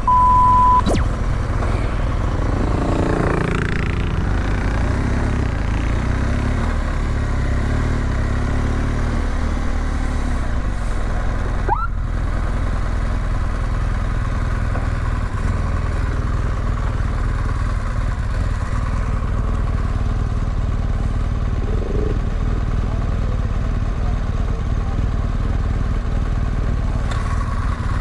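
A short electronic beep, then a GS adventure motorcycle's engine running low and steady at walking pace.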